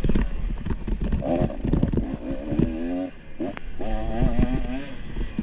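Dirt bike engine revving up and down under changing throttle, with frequent knocks and clatter throughout and one sharper knock about three and a half seconds in.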